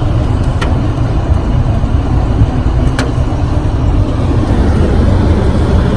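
Heavy rain and strong storm wind beating on a parked car, heard from inside as a loud, steady, rushing noise with a deep rumble, and a couple of faint ticks.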